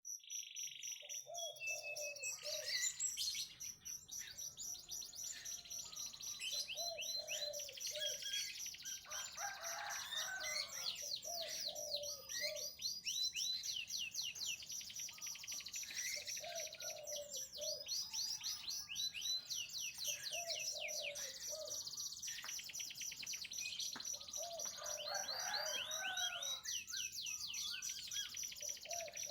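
Domestic canary singing a continuous song of rapid trills and repeated falling sweeps, with a high fast trill held underneath and short lower phrases in between.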